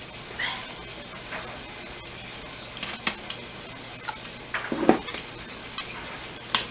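Gloved hands handling a glass jar of oil-soaked herbs over a cloth milk bag in a stainless-steel strainer and bowl: scattered light clinks and knocks of glass and metal, with a louder knock about five seconds in.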